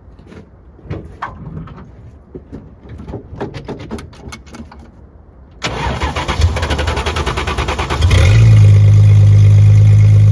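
A scatter of faint clicks and knocks, then the starter cranks the 1967 Plymouth Barracuda's engine for about two and a half seconds until it catches about eight seconds in and settles into a loud, steady idle: the no-start cured by a newly fitted HEI ignition module.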